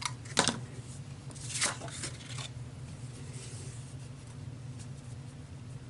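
A sharp tap of a craft tool set down on the desk, then a short rustle of paper being handled, over a faint steady low hum.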